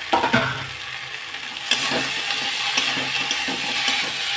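Paneer and potato cubes sizzling in hot oil in a kadhai while a spatula stirs and scrapes them through the masala, with a few knocks at the start. The sizzle grows louder about two seconds in as the pieces are spread over the hot pan.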